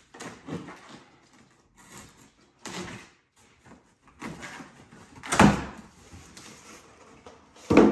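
Large cardboard speaker carton being handled and opened: a series of scrapes and rustles, with a loud thump about five seconds in and another near the end.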